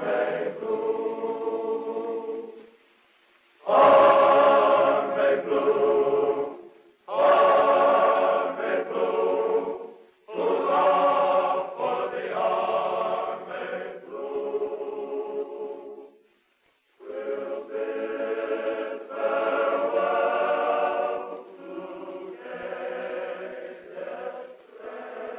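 Choir singing in sustained phrases of a few seconds each, broken by short pauses.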